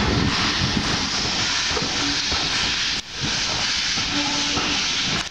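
Steam train pulling out: a loud, steady hiss of steam over the low rumble of the passing carriages. The sound drops out briefly about three seconds in.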